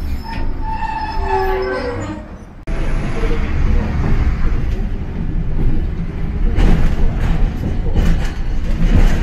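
Hiroshima Electric Railway 700-series tram running, heard from inside near the driver's cab: a steady low rumble of wheels and motors. In the second half a run of sharp clacks comes as the wheels cross the rail junction at an intersection while the tram turns right.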